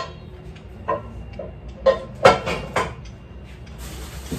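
Unpacking cookware from a cardboard box: several clunks and knocks as items are handled, the loudest a little over two seconds in, then packaging rustling near the end.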